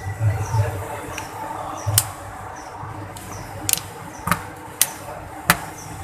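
Plastic back cover of an Oppo A37 phone being pressed back onto the frame, its clips snapping into place with about five sharp clicks over the last four seconds.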